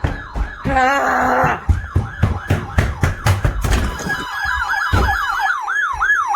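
Electronic sirens sounding, with a rapid series of thumps through the first part. From about four seconds in, a fast yelp siren sweeps up and down about three times a second, with fainter sirens layered above it.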